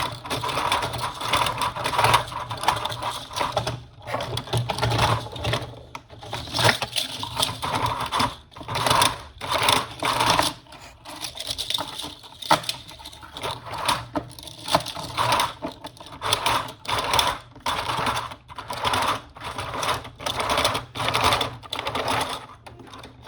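KE75 conveyor chain being fed by hand through the conveyor track, its links clicking and rattling in irregular runs with short pauses.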